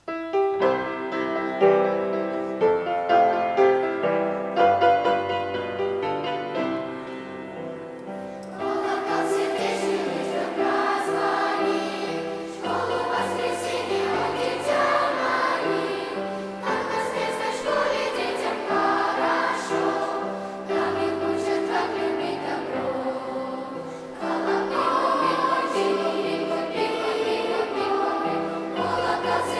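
Children's choir singing a Christian song with instrumental accompaniment. The first eight seconds or so are an instrumental introduction of distinct struck notes over a bass line, and the choir comes in after that.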